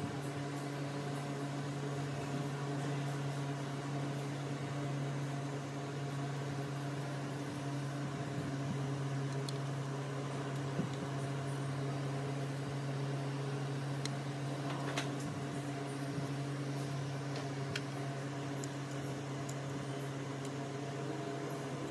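Steady low electric hum, as of a fan or small motor, with a few faint light clicks around the middle.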